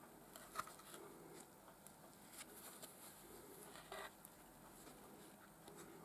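Faint handling noise from gloved hands turning a plastic pistol holster: soft rubbing with a few light clicks, the sharpest about half a second in and about four seconds in.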